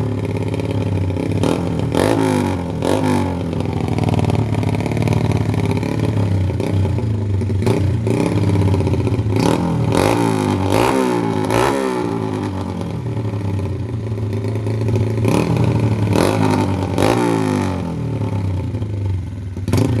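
Built Honda underbone motorcycle's four-stroke single (56 bore, grind cam, stroker crank) running through an open Noo Lamluka racing exhaust, idling and revved up and back down several times, with sharp cracks scattered throughout.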